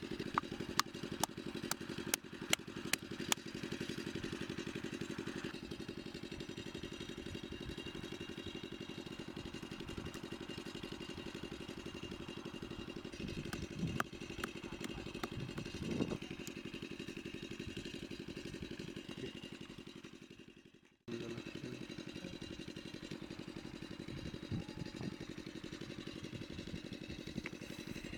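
A small engine running steadily in the background, with a run of sharp clicks in the first few seconds. The sound fades away about three-quarters through and cuts straight back in.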